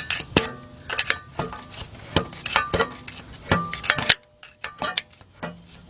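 Irregular sharp metallic clinks and clanks, each with a brief ring, as a steel screwdriver pries and turns the flywheel and torque converter by hand, checking for play between them; a short pause comes about four seconds in.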